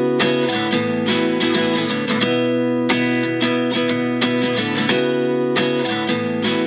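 Instrumental break in a pop song: acoustic guitar strumming chords in a steady rhythm, with no singing.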